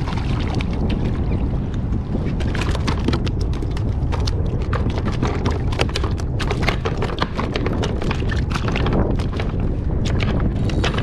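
Strong wind buffeting the microphone on open water, with water splashing and slapping around a fishing kayak and a dense run of irregular clicks and slaps from about two and a half seconds on, while a hooked bluefish is fought.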